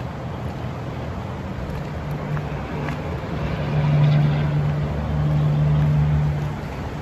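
Rushing river rapids, a steady wash of water noise, under a low drone of passing highway traffic that swells about halfway through and again near the end.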